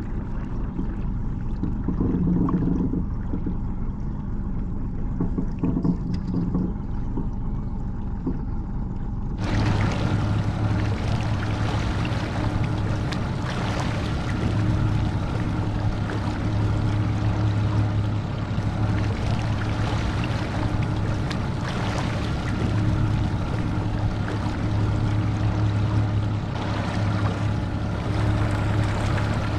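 A boat's outboard motor running steadily underway, with the rush of water. About nine seconds in the sound changes abruptly to a brighter, steadier hum.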